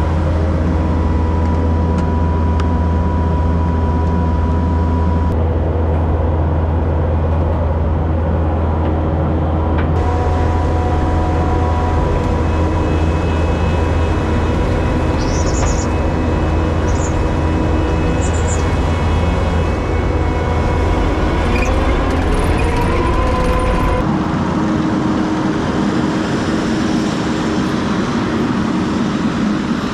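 Kubota SVL75-2 compact track loader's diesel engine running steadily under work, with a few short high squeaks partway through and an abrupt change in its sound about three quarters of the way in.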